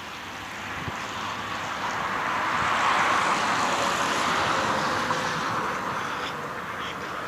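A vehicle passing on the street: its noise swells for about three seconds, peaks, then slowly fades away.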